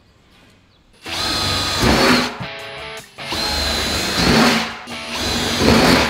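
Cordless drill boring bolt holes through a thin steel drum lid: about a second in, the motor starts and runs three times, each run a steady whine that grows louder before the drill stops.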